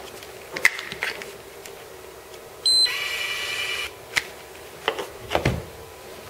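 Bahco 9320 electric pruning shear's control unit being switched on: a few switch clicks, then a short high beep running into a buzzing electronic tone about a second long, the unit's power-on signal. Then several knocks as the shears are set down on the plastic box.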